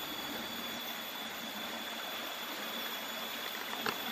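Steady, even rush of a flowing stream, with a thin steady high tone over it and a small click near the end.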